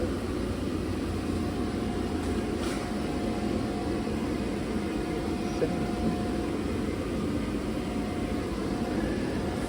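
Steady, even machine drone with a faint held hum, from the paint-booth equipment running: the inflatable booth's blower and the air compressor.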